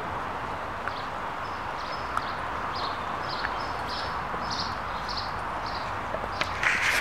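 Puppies eating chicken, chewing with soft clicks and crunches at their steel bowls over a steady outdoor hiss, with a few louder knocks near the end.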